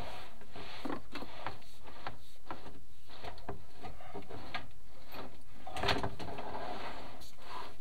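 Chimney inspection camera and its push rod knocking and scraping against the clay flue tiles as the camera is worked up the flue. Irregular clicks and scrapes, several a second, with a louder scrape about six seconds in.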